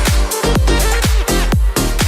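Electronic dance music with a steady, fast kick-drum beat.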